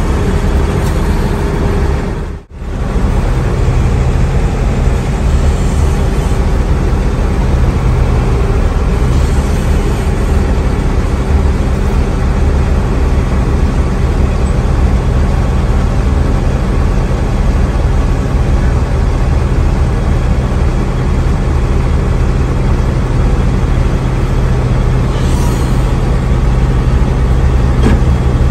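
Hino AK3HR Ranger bus's diesel engine running steadily under way, with road noise, cutting out briefly about two and a half seconds in.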